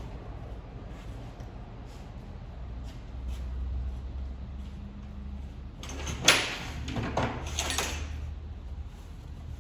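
A low steady hum, then about six seconds in a sharp clack followed by about two seconds of scraping and rattling, as metal parts or tools are handled during repair work.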